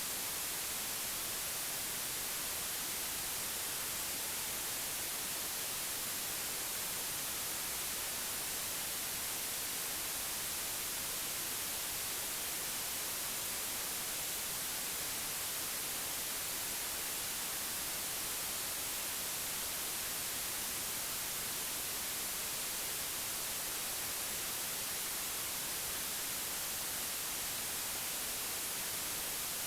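Steady white noise: an even, unbroken hiss that stays at the same level throughout.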